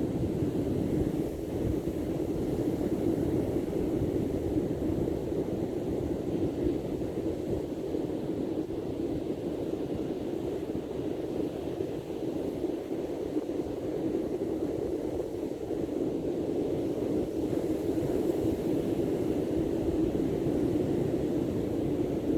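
Steady low rushing noise of sea surf and wind.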